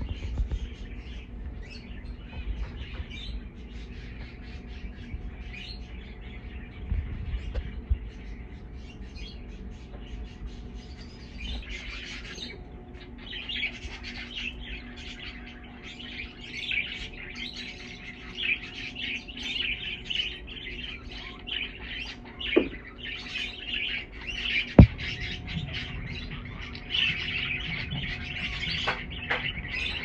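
A flock of budgerigars chattering and warbling in a busy, continuous stream of high chirps. The chatter is faint at first and grows much fuller about twelve seconds in. A single sharp knock stands out about two-thirds of the way through.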